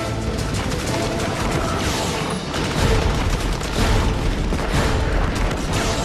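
Rapid gunfire from blank-firing rifles and machine guns with booms, mixed with background music; the firing grows louder about three seconds in.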